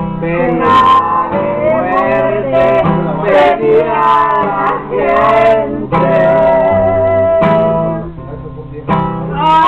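Acoustic guitar strummed with a moving bass line, accompanying a voice singing a melody. About six seconds in, the voice holds one long note for nearly two seconds.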